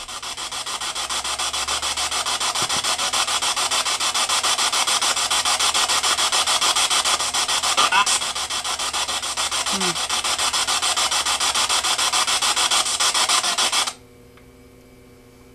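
Spirit box sweeping through radio stations: a loud, rapidly chopping hiss of radio static, with a couple of brief voice-like snippets in the middle. It cuts off suddenly near the end, when the box is switched off.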